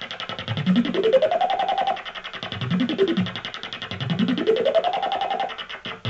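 Flame Talking Synth module played through a Doepfer low-pass filter: a fast-pulsing synthetic buzz whose pitch is steered by the Knob Recorder's control voltage. The pitch glides up and holds high, makes a shorter rise and fall, then glides up and holds again.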